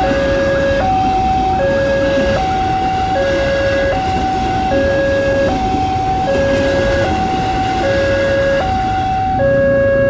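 Railway level-crossing warning alarm sounding a steady two-tone hi-lo pattern, each tone lasting about three-quarters of a second, over the running noise of a passing ex-JR 205 series electric commuter train. The alarm cuts off right at the end as the train clears the crossing.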